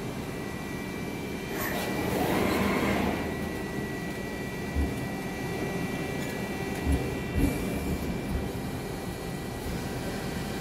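Trumpf TruBend 3180 hydraulic CNC press brake running: a steady machine hum with a faint high whine. A swell of motion noise comes about two seconds in and a few dull knocks follow in the second half, as the backgauge axes travel.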